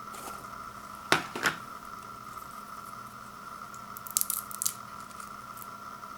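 Popcorn packaging being handled: two sharp taps close together about a second in, then a brief crisp crinkle a few seconds later, over a steady electrical hum.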